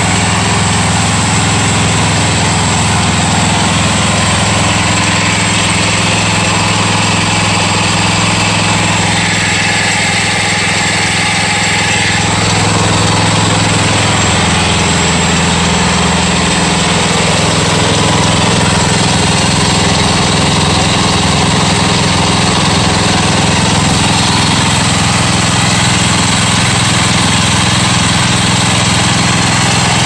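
Gasoline engine of a homemade bandsaw sawmill running steadily at an even speed.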